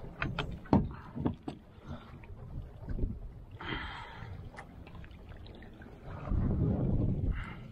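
Water sloshing against the side of a boat, with wind on the microphone. A few sharp clicks and knocks come in the first second and a half, a short splashing rush comes about three and a half seconds in, and a louder low gust of wind comes about six seconds in.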